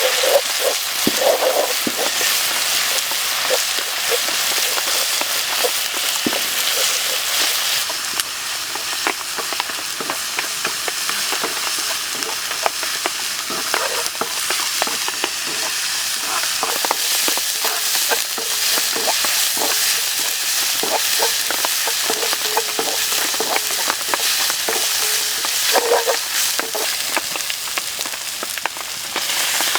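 Stingray pieces stir-frying in hot oil: a steady, loud sizzle with frequent clicks and scrapes of a utensil stirring against the pan.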